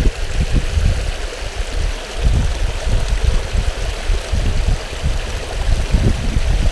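Creek water rushing over rocks: a steady hiss with irregular low rumbling.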